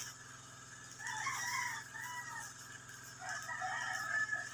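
A rooster crowing twice: one wavering crow about a second in and another near the end, over faint background music.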